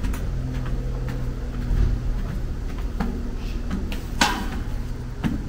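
Wire two-wheeled shopping trolley knocking and clattering as it is hauled up steps and lifted through a metal gate: a few sharp knocks, the loudest a little after four seconds in, over a low steady hum of parking-garage ambience.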